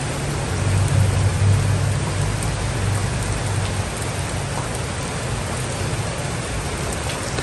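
Steady rain falling, an even hiss throughout, with a low rumble that swells about a second in and fades out by the middle.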